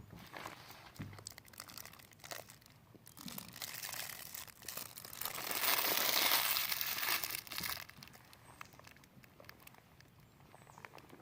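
Crinkling and rustling handling noise with scattered clicks, swelling into a longer, louder rustle about halfway through.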